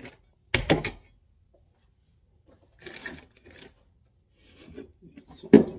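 Small metal transmission parts being handled and set down on a workbench: three short bursts of clatter with quiet between, the loudest near the end.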